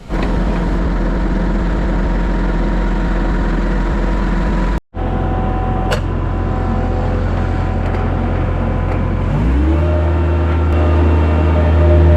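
Engine running steadily with a low drone, then speeding up about nine and a half seconds in and holding at a higher steady pitch.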